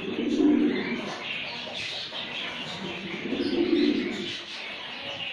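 Domestic pigeons cooing: a low coo swells about half a second in and another from about three to four seconds in. Lighter high chirps sound alongside.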